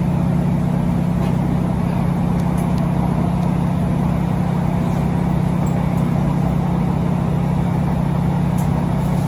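Inside a Class 156 Super Sprinter diesel multiple unit on the move: a steady low drone from the underfloor diesel engine and running gear, with wheel-on-rail noise, holding level throughout.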